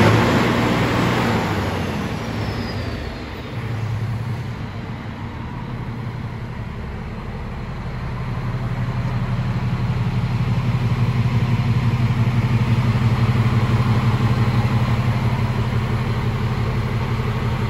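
Scania G440 tractor unit's turbocharged straight-six diesel idling steadily, heard from inside the cab; it grows louder about eight seconds in.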